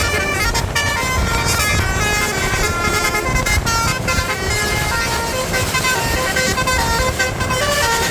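A bus's basuri (telolet) musical horn playing a quick melody of stepping tones that hop up and down in pitch every fraction of a second, over a steady low rumble of traffic.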